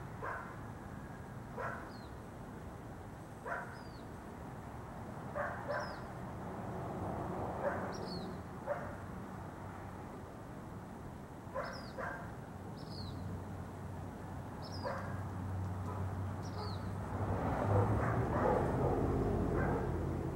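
Black phoebe giving short, sharp, high downslurred chip calls, about eight of them a second or more apart, over a dog barking now and then. A low rumble swells near the end.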